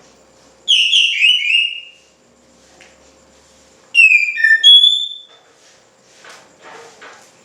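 Oriental magpie-robin (kacer) singing loudly: two bursts of clear, shifting whistled notes, the second about three seconds after the first.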